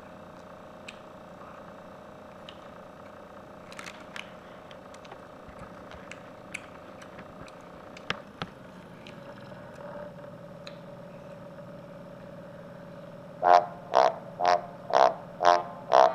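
A steady low hum with scattered light clicks and clatter. Near the end a run of loud, evenly spaced honking notes starts, about two a second, opening a piece of music.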